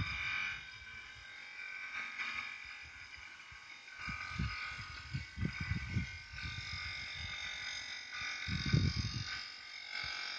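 A steady high-pitched electrical buzz from a Renault's engine bay with the engine switched off, a noise that began after the air conditioning was serviced, with some low rumbles partway through.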